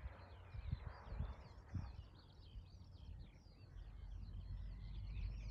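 Small birds chirping and twittering continuously, over a low, uneven rumble.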